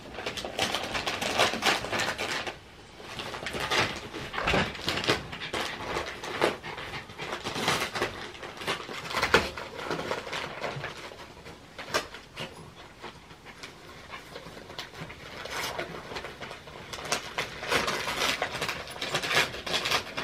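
Norfolk Terrier panting in uneven bursts while it plays with a plush toy.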